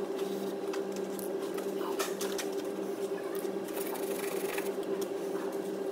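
Wire-brush scrubbing and penetrating-oil spraying on rusty suspension-arm bolts: irregular bursts of scratchy noise, heaviest about two seconds in and again past the middle, over a steady low hum.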